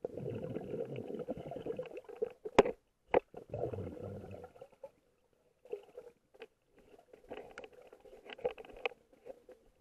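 Muffled river-water noise picked up by a camera held underwater, coming in bursts, with two sharp knocks about two and a half and three seconds in and scattered faint clicks later.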